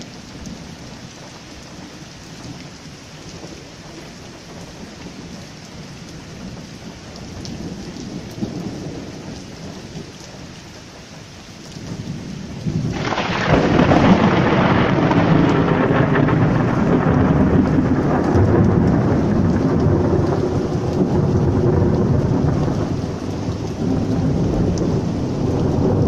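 Heavy rain falling steadily, with a low roll of thunder about eight seconds in. Halfway through, a loud peal of thunder breaks suddenly and rumbles on over the rain for the rest of the time, easing slightly near the end.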